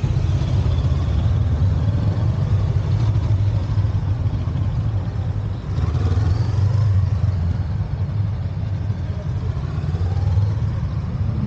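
Honda CL500 parallel-twin motorcycles running at low speed close by, one after another, with a steady low rumble. The engine note rises and falls as the riders work the throttle.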